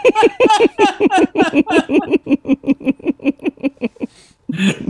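A man laughing hard: a long run of quick, rhythmic ha's, about five a second, each dropping in pitch, that fade out about four seconds in.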